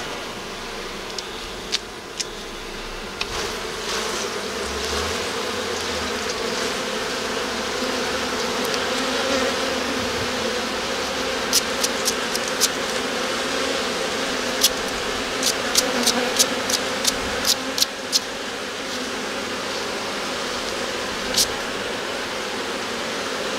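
Honeybee colony buzzing steadily around an opened hive. A run of sharp clicks comes through the middle, and one more near the end.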